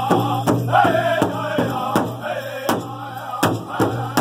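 Powwow drum group singing together while beating a large shared bass drum with drumsticks in a steady beat, about one stroke every 0.7 seconds. The singing fades in the second half while the drum strokes carry on.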